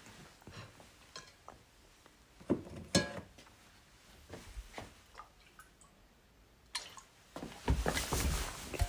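Potato chips being crunched and chewed: scattered sharp crackles with wet mouth sounds between them, the loudest crunch about three seconds in and a rapid run of crunching near the end.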